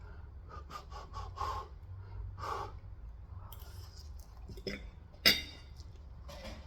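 Close-miked chewing and breathing of someone eating Korean fried chicken: a run of short mouth and chewing sounds, then one sharp, loud click a little past five seconds in.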